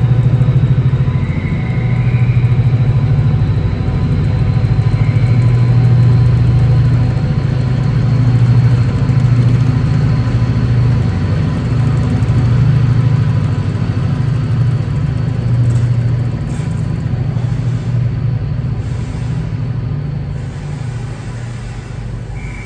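Class 68 diesel locomotive's V16 engine running with a deep, steady drone as it hauls coaches past. The drone fades from about two-thirds of the way through as the train moves away.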